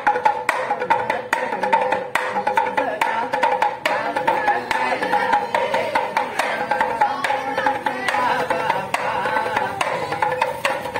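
Damru, a small hand-shaken pellet drum, clacking in quick irregular runs of beats, over steady pitched music.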